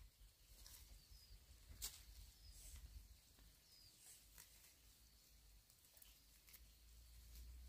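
Near silence with faint rustling and snapping of leafy plants being picked by hand, and two brief, faint, high chirps in the first few seconds.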